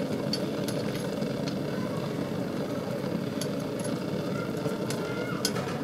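Gas stove burner running with a steady, even rush under a pan of cooking batter, with a few light clicks.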